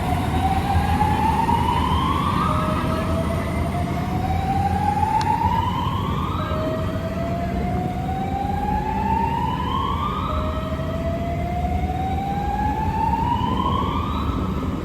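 Fire apparatus siren wailing in four slow rising sweeps, each climbing for about four seconds and then dropping abruptly, over a steady low rumble.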